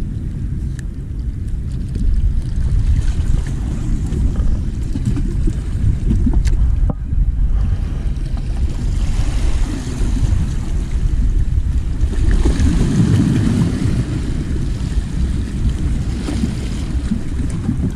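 Wind buffeting the microphone in a steady low rumble, with small waves washing against the breakwater rocks; the rumble swells about thirteen seconds in.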